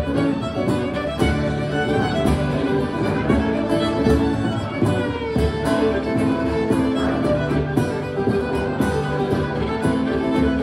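Live trad band playing a reel: two fiddles carrying the melody over strummed guitar and a steady bodhrán beat.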